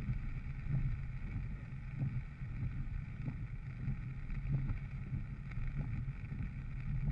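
Steady low rumble of a vehicle driving on a rain-soaked road, heard from inside the cabin, with faint regular ticks about once a second as the windshield wipers sweep.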